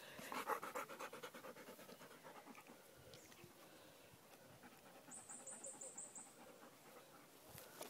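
Golden retriever panting rapidly, about five breaths a second, loudest in the first couple of seconds and then fading to faint. A short run of high, quick chirps about five seconds in.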